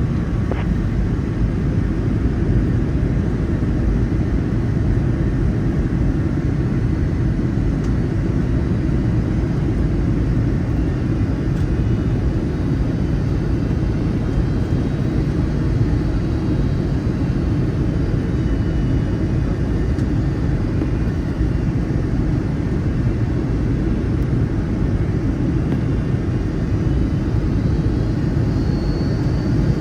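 Steady rumble of airflow and engines heard inside the cabin of a Boeing 757-200 in flight on approach, even and unchanging throughout.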